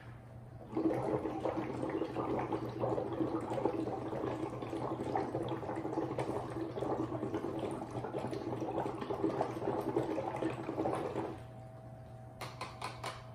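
Exhaled breath bubbling through two drinking straws into two cups of water dosed with pH indicator drops, a steady gurgle that starts about a second in and stops abruptly after about ten seconds; the carbon dioxide in the breath is meant to acidify the water. A few light clicks follow near the end.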